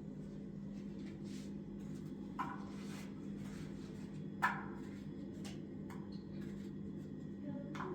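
A steady low electrical hum, with a few soft knocks and handling sounds, the most distinct about halfway through.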